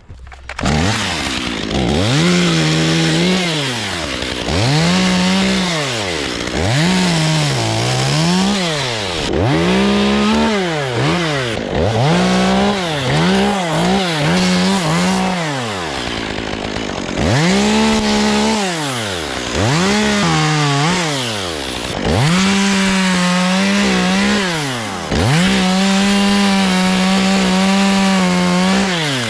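Gas chainsaw cutting wood in a series of about ten cuts, revving up, holding at full throttle through each cut and dropping back to idle between them; the last cuts near the end are held longest.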